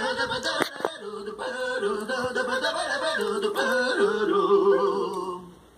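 Closing theme music: a voice-like melody line that steps between notes with a wavering pitch, fading out near the end.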